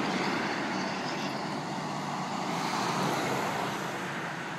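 Road traffic: cars and trucks passing on a multi-lane road, a steady noise of tyres and engines that swells slightly partway through.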